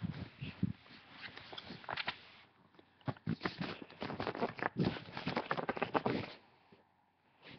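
Rapid, irregular knocking and rattling, a dense run of short hard taps that stops abruptly about six seconds in.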